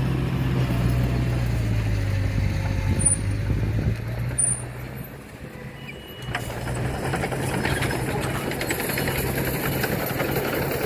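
Heavy diesel earthmoving machine engine running steadily. About five seconds in it drops back for a second or so, then picks up again, with a clattering rattle over it after that.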